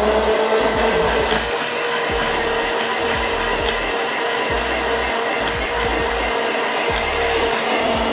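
Hand-held immersion blender running steadily at one constant pitch inside a tall plastic beaker, blending thick homemade mayonnaise as lemon juice is worked in.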